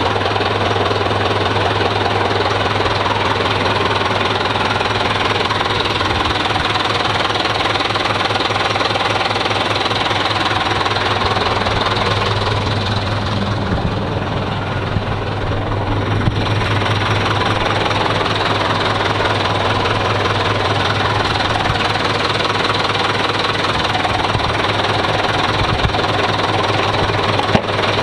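1996 Mitsubishi Fuso Canter fire truck's engine idling steadily, with a constant low hum.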